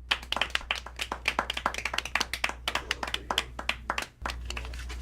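A small group of people clapping, with many sharp claps overlapping, stopping abruptly about four seconds in.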